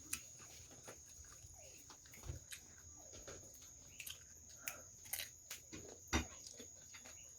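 Faint eating sounds: quiet chewing and mouth noises with scattered small clicks, over a steady faint high-pitched whine.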